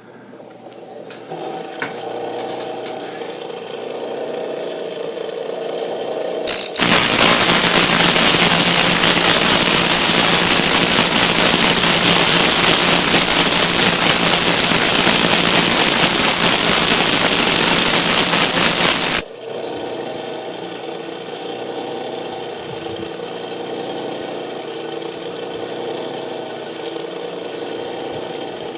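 Blade-sharpening machine motor coming up to speed and running steadily; from about seven seconds in a rotary cutter blade is held against the sharpening wheel for about twelve seconds, a loud grinding hiss with a high steady whine, cutting off sharply before the motor runs on alone.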